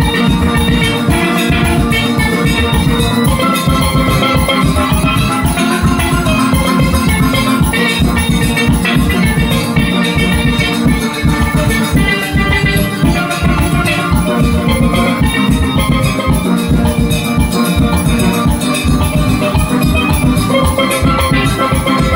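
Single-pan steelband playing live: steel pans carrying the tune over a steady drum beat.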